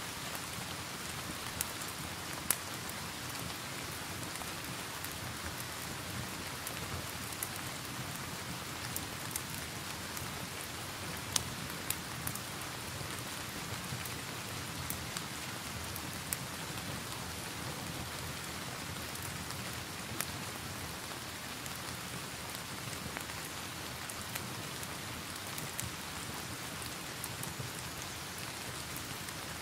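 Steady rain hiss mixed with a crackling log fire, the fire giving scattered, irregular sharp crackles and pops over the even sound of rain.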